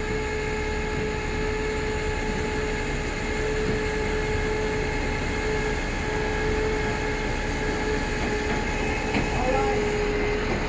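Flatbed tow truck running its winch and hydraulics: a steady drone under a held whine, which stops shortly before the end.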